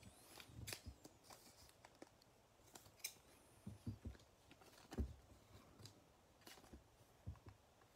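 Faint rustling and soft clicks of a clear plastic card sleeve and trading cards being handled as a patch card is slipped into the sleeve, the sharpest tap about five seconds in.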